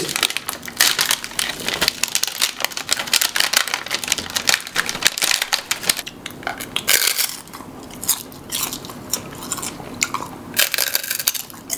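Crunchy Pepero biscuit sticks being bitten and chewed close to the microphone: a dense run of irregular crunches, a little sparser in the middle.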